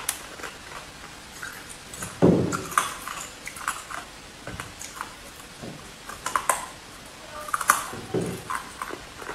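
Hard ice being bitten and chewed: a series of irregular crisp crunches, with louder bites about two seconds in and again near the end.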